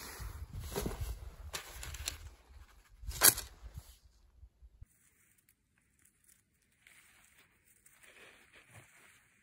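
Low rumble of wind on the microphone with rustling handling noise and one sharp crackle about three seconds in. Near silence with faint rustles follows from about five seconds in.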